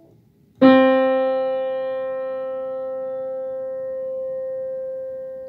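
A single Schimmel piano note, about middle C (ド), struck once and left to ring, fading slowly.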